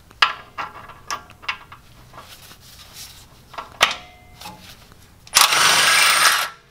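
A few clicks and knocks as a socket is worked onto a brake caliper bolt, then, about five seconds in, a cordless impact wrench runs for about a second, loosening one of the two 17 mm caliper bolts.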